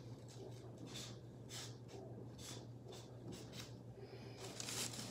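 Faint, irregular short scratching and rustling sounds over a steady low hum, with the scratches coming a little thicker near the end.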